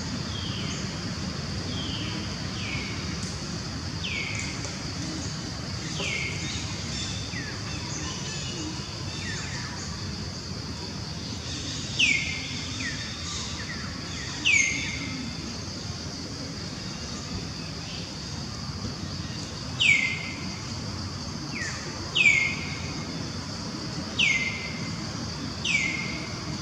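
A bird calling over and over in short, sharp notes that slide downward in pitch, one every couple of seconds, louder from about halfway through. A steady high-pitched hiss runs underneath.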